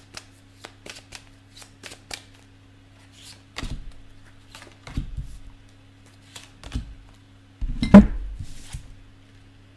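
A deck of oracle cards being shuffled by hand with quick light clicks, then cut and set down on the table with four thuds, the loudest about eight seconds in.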